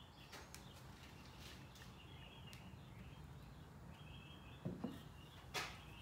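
Walnut board laid onto a glued walnut board: two light wooden knocks about three-quarters of the way through, then a short rub of wood on wood as it is pressed and shifted into place. Faint scattered chirps run in the background.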